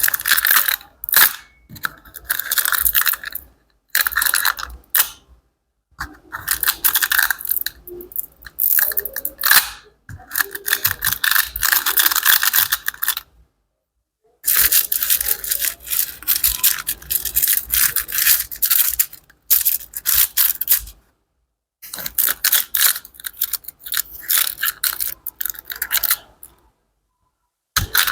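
Close-miked crackling and scratching of some material, in bursts of rapid clicks lasting a few seconds each, cut apart by sudden silent gaps.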